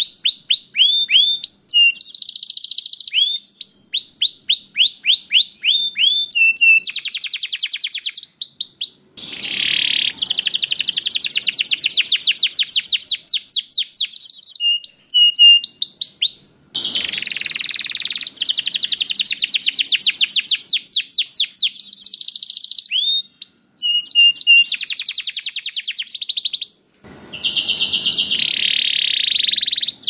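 Male domestic canary singing a long, loud, high-pitched song of rapid rolling trills and down-slurred notes. The song breaks off briefly a few times between phrases.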